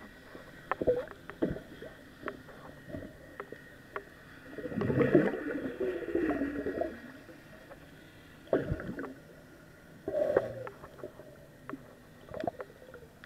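Muffled underwater sound heard through a waterproof camera housing: scattered clicks and knocks, with a louder wavering, bubbly stretch lasting about two seconds, starting about four and a half seconds in, and two shorter bursts later.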